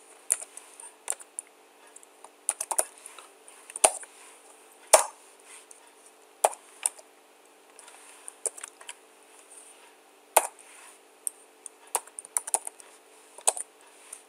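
Typing on a computer keyboard: irregular keystrokes with a few louder key presses, over a faint steady hum.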